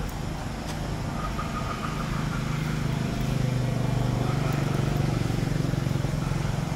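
A motor engine hums steadily, growing louder about three seconds in and easing off slightly near the end.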